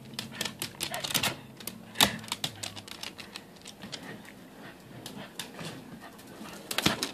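A corgi's claws clicking and skittering irregularly on a tiled floor as it scrabbles at a string mop, with one sharp click about two seconds in. A low dog growl runs under the first few seconds and then stops.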